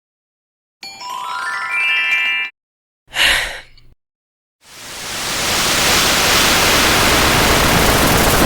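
Three separate sound effects with silences between them: a quick rising run of bell-like tones, a short noisy burst with a low thump, then a long steady hiss like static that fades in and runs on.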